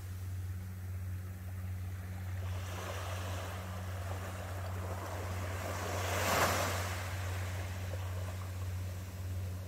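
A small sea wave washing up onto a sandy beach: the wash swells from about two and a half seconds in, peaks a little past the middle and fades. Under it runs a steady low hum.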